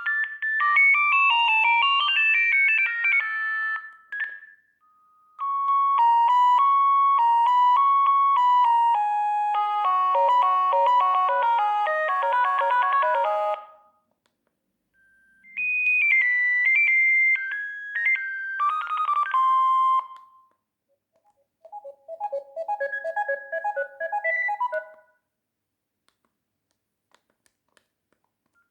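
Sagem myX-3 mobile phone playing its built-in ringtones one after another through its small speaker: four short electronic melodies of clear beeping notes, each stopping after a few seconds with a brief pause before the next, then quiet near the end.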